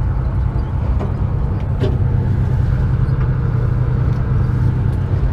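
Fishing boat's engine running with a steady low drone, with a few faint ticks.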